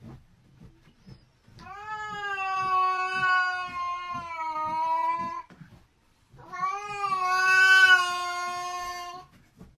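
A cat yowling at another cat with its ears flattened, a defensive warning. It gives two long, drawn-out yowls, each about three to four seconds at a nearly steady pitch, with a short pause between them.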